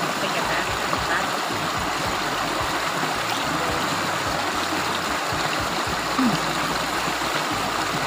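Small waterfall spilling into a stream pool, a steady rushing and splashing of water, with a hand scooping and flicking water at the pool's edge.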